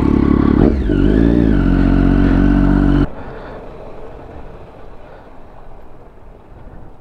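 Motorcycle engine running steadily, with a brief dip and rise in revs about a second in. The engine sound cuts off abruptly about three seconds in, leaving a much quieter steady background noise.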